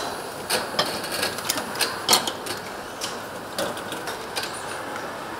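Sharp metallic clicks and clinks of engine parts and tools being handled, a quick run of them with the loudest about two seconds in, over the steady hum of an engine assembly line.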